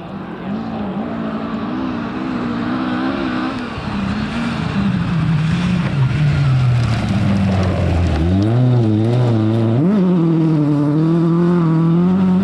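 Rally car engine revving hard, its pitch rising and dropping with gear changes and lifts off the throttle. It grows louder as the car approaches, with a sharp rise in revs about ten seconds in.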